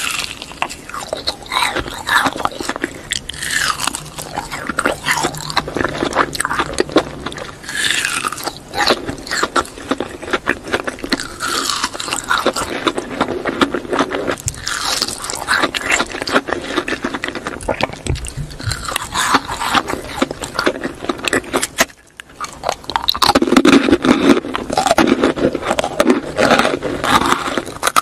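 Close-miked eating: biting and chewing sugar-coated jelly candy on sticks, with sticky, wet mouth sounds. After a brief drop about three-quarters of the way through, it changes to biting and chewing an ice cream sandwich.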